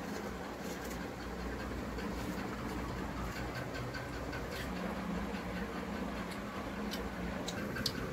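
Eating rice and fish curry by hand from steel plates: scattered light clicks and ticks of fingers, food and chewing, over a steady low background hum.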